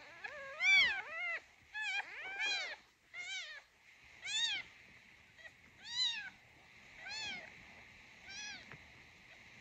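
Newborn kitten mewing: about nine short, high cries, each rising and then falling in pitch, spaced irregularly.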